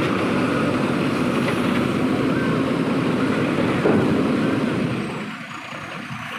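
Heavy vehicle engine running loud and steady, with a short knock about four seconds in, then dying down about a second later.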